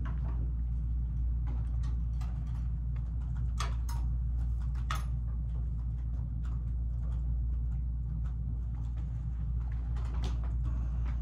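A steady low hum with short clicks, knocks and scrapes scattered through it, the sound of papers and small objects being handled at a table. The sharpest knocks come around four and five seconds in and again near the end.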